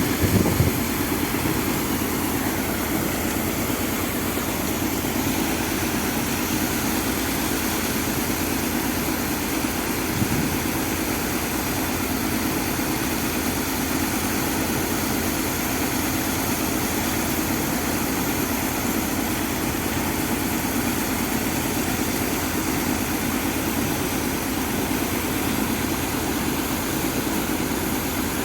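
Engine of a sand pump running steadily at constant speed while pumping sand, with a brief thump about ten seconds in.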